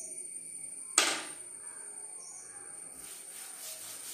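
A sharp knock about a second in, then a cloth duster rubbing chalk off a blackboard in quick back-and-forth strokes from about three seconds in.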